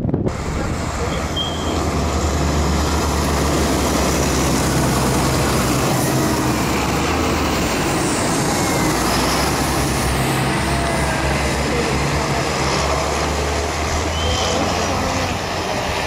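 Tractor engine running as tractors drive along a snow- and slush-covered road: a steady low engine hum under an even rush of road noise.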